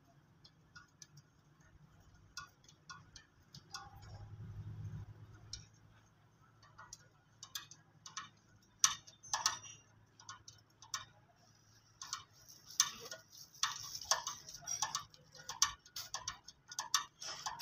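Spanner and bolts clinking in scattered metal clicks and taps while the turbocharger is being unbolted from a tractor engine that is not running, the taps coming faster and louder in the second half. A brief low hum about four seconds in.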